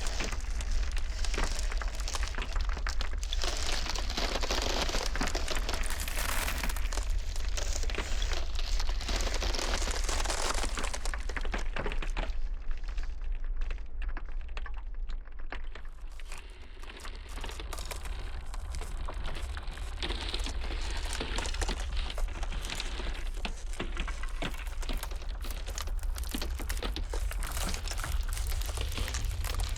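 Ice cracking and crackling: a dense, continuous run of small sharp cracks over a steady low rumble. The crackle thins out and quietens briefly around the middle, then builds back up.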